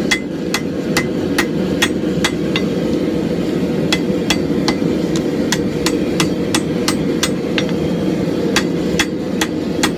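Hand hammer striking a red-hot steel axe eye on an anvil, about three blows a second with two short pauses, over a steady low hum. The smith is drawing out the neck and thinning the freshly forge-welded eye.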